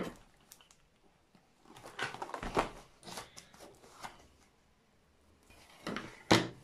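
Cardboard box being handled on a wooden table: short bouts of scraping and rustling as scissors pry at the box's end flap, then a single sharp knock near the end as the box is set down.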